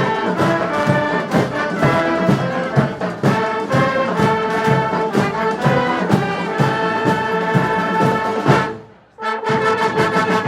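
Street brass band playing a tune, horns over a steady drum beat. About nine seconds in the sound falls away to a short gap, then the band comes back in.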